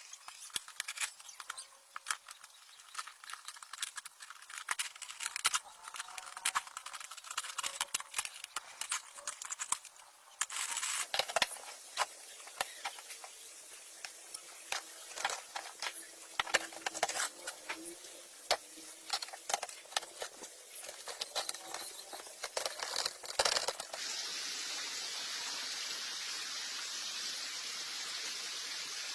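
Irregular small clicks and taps, like hand tools and metal parts being handled during work on a motorcycle. About 24 seconds in, a steady hiss starts and runs on.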